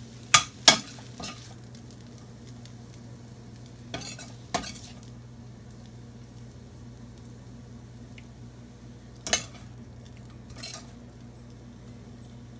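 Metal tongs clinking and scraping against a stainless steel wok and plate as stir-fried glass noodles are lifted out and served, a handful of sharp clinks spaced out, two of the loudest in the first second. A low steady hum runs underneath.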